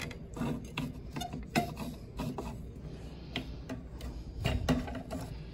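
Irregular clicks, knocks and rubbing of metal parts as the heat sink and output amplifier board are worked up and out of a vintage Marantz 2245 receiver chassis. The loudest knock comes about a second and a half in.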